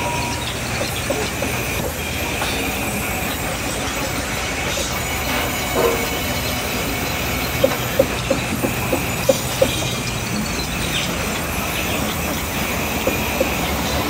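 Large sawmill band saw running as timber is fed through it: a steady high whine over a low hum. A quick run of sharp knocks comes about eight seconds in.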